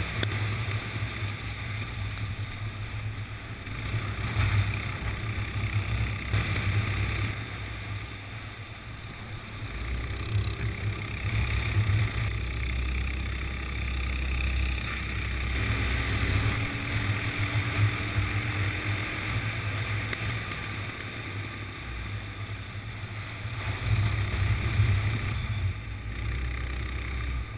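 Go-kart engine running under throttle, heard from on board the kart, its level swelling and dipping every few seconds as the throttle opens and closes. A steady rushing hiss runs over it.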